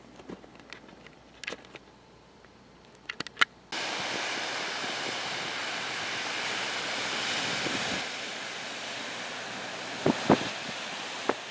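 A few faint clicks, then after a sudden cut a steady rush of ocean surf with wind on the microphone, with a few sharp knocks near the end.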